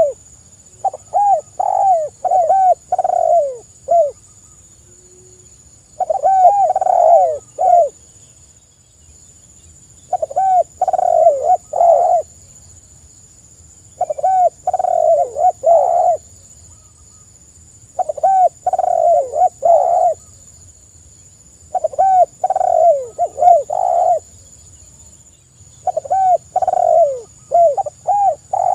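Spotted dove (tekukur) cooing: repeated phrases of several short, falling coos, a new phrase about every four seconds.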